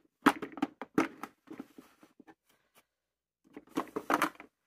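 Makeup products and a plastic organizer being handled: a run of short clicks and clatters, then a second run near the end.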